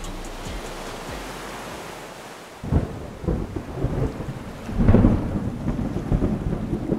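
Thunder rumbling in surges over a hiss of rain, starting suddenly about two and a half seconds in and loudest near the five-second mark.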